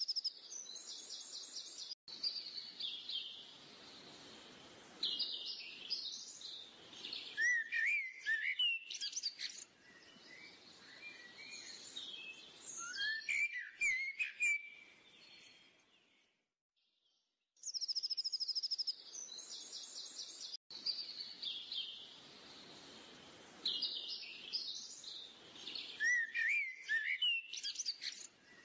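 Birdsong ambience: several small birds chirping and trilling over a faint outdoor hiss. It is a looped background track: the same stretch of about eighteen seconds plays twice, broken by a short gap about sixteen seconds in.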